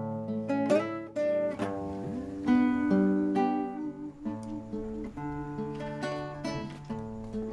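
Acoustic guitar playing alone: a slow instrumental passage of plucked notes and chords, a break between sung lines of a ballad.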